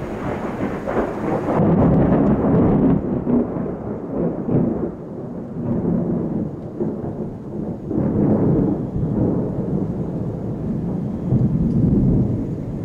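Rolling thunder rumbling without a break, swelling louder three times and easing between the peaks.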